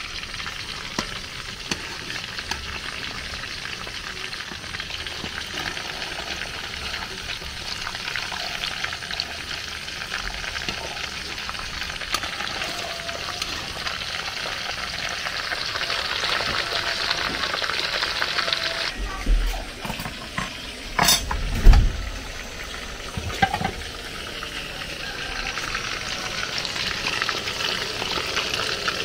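Fish pieces frying in hot oil in an aluminium pot, a steady sizzle, stirred with a metal spatula. About two-thirds of the way through come several loud knocks and clatters of the spatula against the pot.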